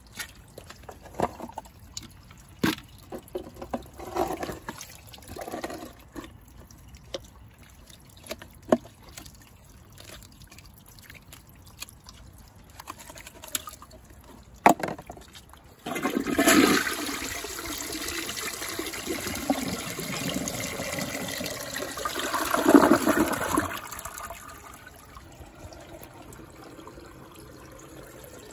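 A few scattered knocks and clatter, then about halfway through a toilet flushes: a sudden rush of water that swells for several seconds and then settles into the quieter steady hiss of the tank refilling.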